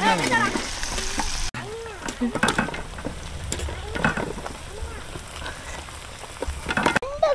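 Masala-coated parotta pieces deep-frying in hot oil in an iron kadai, sizzling steadily as they are stirred with a wire strainer spoon, with scattered light clinks of metal on the pan.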